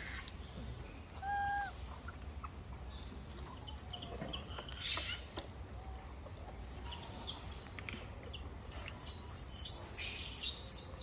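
Scattered short animal calls and chirps: one clear held note about a second in, then a run of high chirps near the end, over a steady low rumble.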